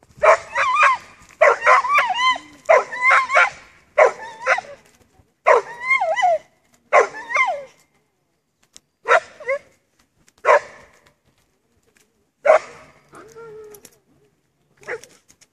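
Dog barking in a run of high, yelping barks, each one bending in pitch: about six in quick succession, then a few more spaced further apart. It barks at a person walking away from it.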